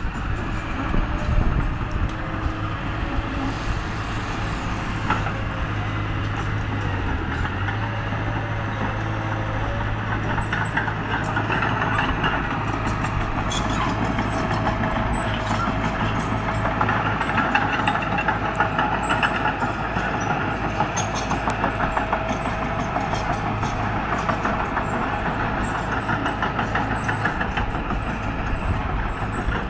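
Small crawler bulldozer's diesel engine running steadily under load as it pushes dirt, with a fine rapid clatter from its steel tracks.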